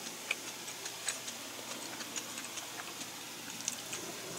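Faint, scattered small clicks and ticks of a person eating a meal, over a steady background hiss.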